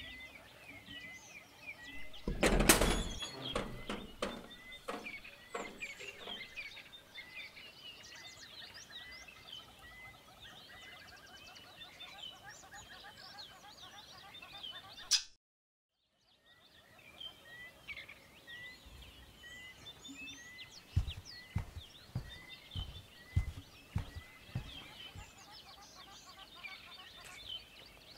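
Small birds chirping throughout, one repeating a short high note about once a second, with a loud clatter about two seconds in and a run of low thumps in the second half; the sound cuts out completely for about a second near the middle.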